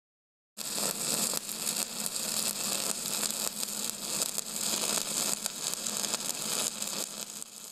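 Stick welding arc crackling steadily, a dense hiss full of irregular pops, starting abruptly about half a second in and fading out at the end.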